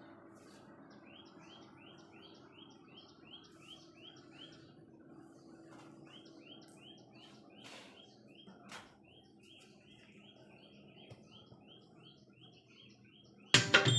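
A bird chirps faintly in quick runs of short, falling chirps, about three or four a second, over a faint low hum. Loud music begins abruptly near the end.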